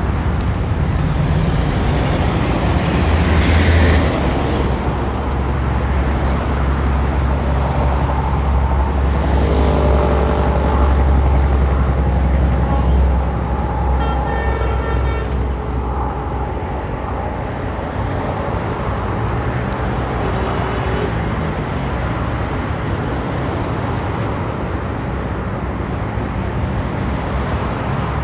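Street traffic: cars and trucks passing with a steady low engine and tyre rumble, swelling as vehicles go by early on and about a third of the way in. A brief high-pitched tone sounds about halfway through.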